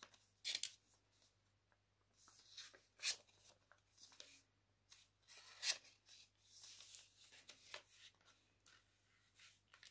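A sheet of paper rustling and crinkling under the fingers as it is folded and creased, in short irregular rustles, the sharpest about half a second, three seconds and six seconds in.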